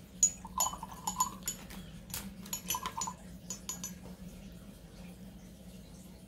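A quick run of light clinks and taps, as a paintbrush is picked up and knocked against a hard cup or palette, lasting about four seconds before it stops, over a faint steady hum.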